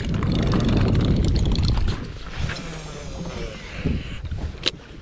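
Wind rumbling on the microphone over choppy water. It eases off about two seconds in, leaving quieter lapping water and a single sharp click near the end.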